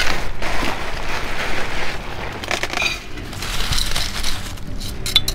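Volcanic rock gravel poured from a plastic bag into a flowerpot: a rattling trickle of small stones, with the bag rustling, and a few sharper clicks near the end.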